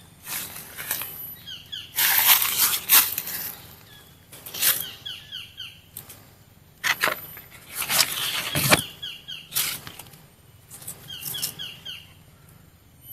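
A songbird repeating short phrases of quick descending chirps, broken by several loud bursts of rustling.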